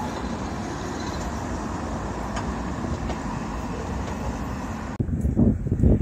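Steady road traffic: cars driving on the streets below. About five seconds in it cuts off abruptly and gives way to wind gusting against the microphone in low, uneven buffets.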